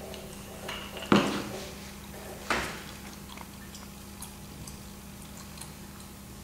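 Two sharp knocks on a wooden work board, a second and a half apart, the first the louder, as the rubber hand roller and print are handled. After them come faint light crackles as a paper print is peeled back off a soft clay slab.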